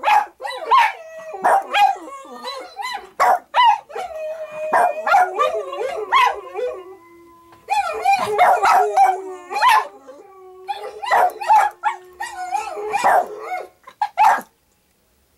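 Boston terrier howling along with recorded dog howls: several wavering, up-and-down howls overlap, broken by short sharp yips and barks. The howling stops about a second before the end.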